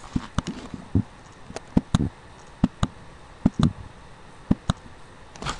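Computer mouse clicking: about ten sharp, separate clicks at an uneven pace, some in close pairs. These are letters being tapped out one at a time on an on-screen keyboard.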